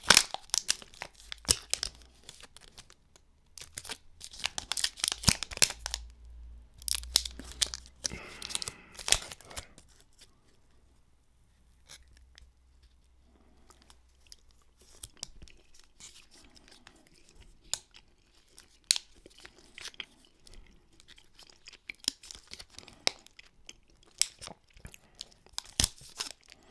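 Close-miked crinkling and tearing of a snack-bar wrapper in several bursts over the first ten seconds, followed by quieter scattered clicks and chewing of a soft date-based fruit bar.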